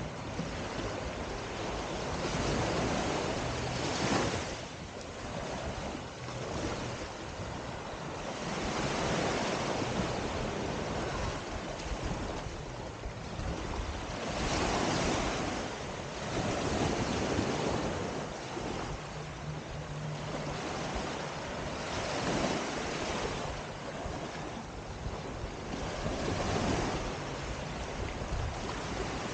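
Small waves washing up on a sandy beach, the surf swelling and fading every few seconds, with wind buffeting the microphone.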